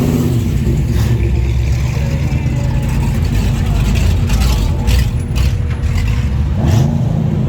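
Car engines rumbling as cars cruise slowly past, with one engine revving up about seven seconds in.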